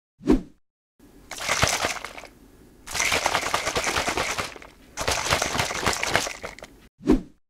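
Plastic squeeze bottles of pancake batter shaken hard in three bursts of a second or more each, a fast dense rattle, to mix food colouring into the batter. A short knock comes just before the first burst and another after the last.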